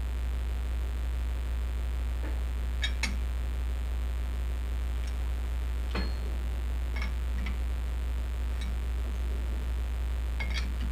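A steady low hum with about ten scattered, sharp metallic clicks and taps of hand work at the lathe, as a workpiece is being indicated and adjusted in the chuck.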